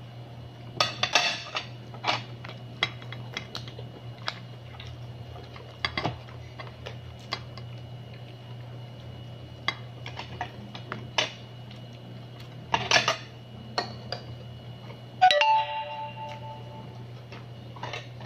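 Metal spoon clicking and scraping on a ceramic plate, with scattered light clinks and two brief scraping bursts, over a steady low hum. About 15 seconds in, one sharp clink rings on for over a second.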